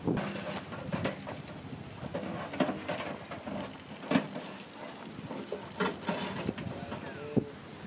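Scattered light clicks and knocks at an irregular pace from a foil-wrapped fish being handled on a wire charcoal grill, with some wind on the microphone.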